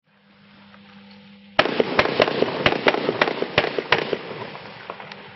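Weco Frequenzy low-noise fan-firing firework battery (cake) going off. After a faint hiss, about a second and a half in, a quick run of eight or so sharp launch pops a few tenths of a second apart comes over a dense hiss of the rising comets, then fades out near the end. As a Silent Line item it fires without loud bangs.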